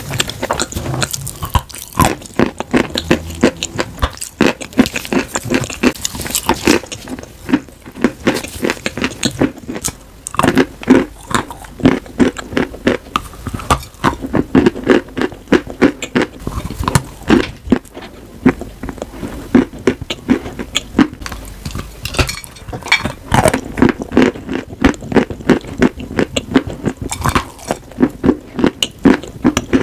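Close-miked biting and chewing of chunks of chalk and clay: many sharp, dry crunches in quick succession.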